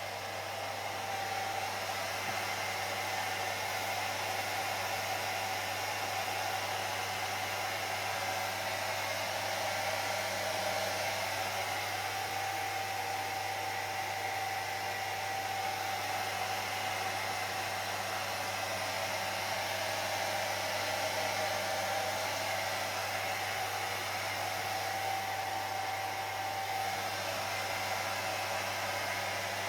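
Hair dryer running steadily: a constant airy rush with a motor hum and a whine in it, blowing on wet hair.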